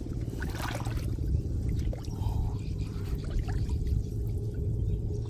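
Water splashing and trickling, with several sharp splashes over a steady low rumble.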